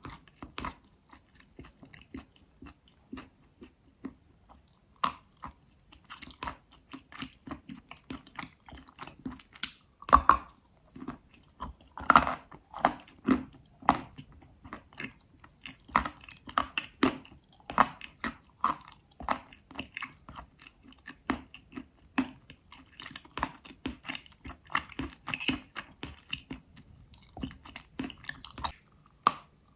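Pieces of chalk being bitten and chewed close to the microphone: irregular dry crunches and crackles, with the sharpest bites about a third of the way in.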